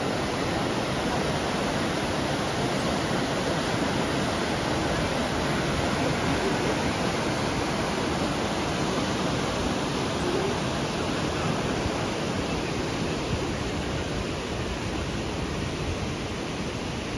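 Radovna river rushing over boulders in whitewater rapids: a steady, even rush of water, easing slightly near the end.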